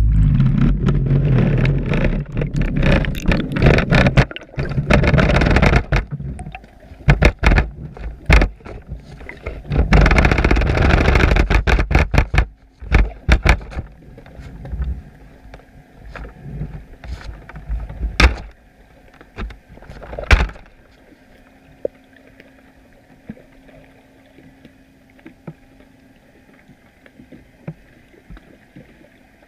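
Underwater noise from a GoPro on a chum pot being lowered through the water: loud rushing water with many knocks and bangs for about twelve seconds, a few sharp knocks until about twenty seconds in, then quiet underwater ambience with a faint steady hum and occasional faint clicks.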